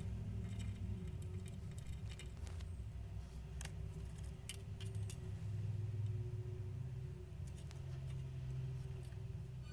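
Scattered light metallic clicks and clinks of small tools and parts being handled, over a low steady hum.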